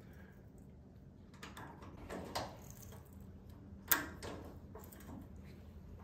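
Hand tap cutting threads in a metal cart frame hole, turned with a ratcheting tap wrench: a few faint scraping creaks and clicks as the tap binds, the sharpest click about four seconds in.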